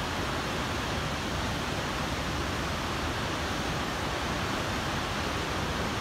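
Steady rush of the High Falls on the Pigeon River, a large waterfall in full flow.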